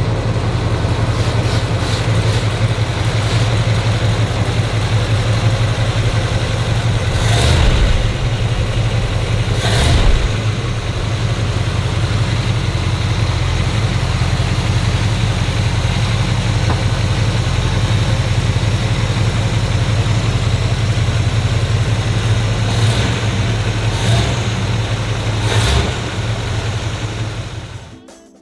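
1970 Chevelle SS's 454 LS5 big-block V8 idling steadily, with a few brief surges in level about eight and ten seconds in and again near the end.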